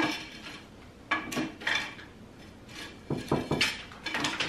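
Clatter of small hard objects being picked up and set down on a table: a sharp click at the start, then irregular knocks and rattles.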